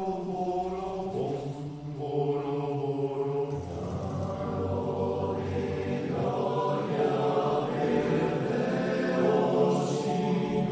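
Male choir singing a part-song in sustained, slow chords; the low voices come in strongly about three and a half seconds in, and the sound grows gradually louder.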